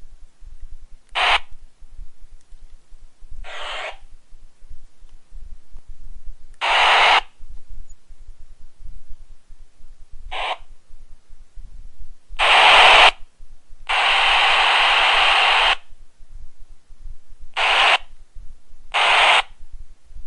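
A pager going off in a series of eight short, harsh, buzzy bursts at uneven intervals. Two longer ones fall near the middle, the second lasting about two seconds.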